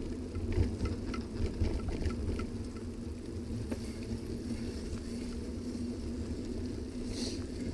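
Steady low rumble of a bicycle riding over a wet path, picked up by a bike-mounted camera: tyre noise and wind buffeting the microphone, with light rattling ticks in the first few seconds and a brief hiss about seven seconds in.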